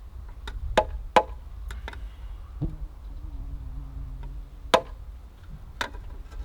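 Sharp knocks of a trowel tapping a brick down into fresh mortar while laying it: two close together about a second in and two more near the end, each with a brief ring. A low steady hum sounds for about two seconds between them.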